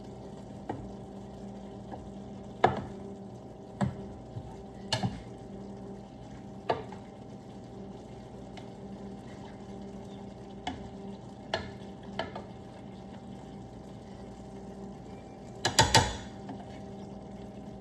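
Ground beef and onions frying in a pan while a utensil stirs them, knocking against the pan every second or two, with a quick run of louder knocks near the end, over a steady low hum.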